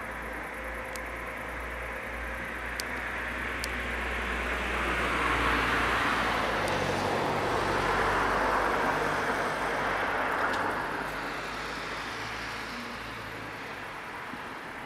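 A vehicle driving past: a rushing sound swells from about four seconds in, stays loudest for several seconds with a low hum, and fades away again near the end.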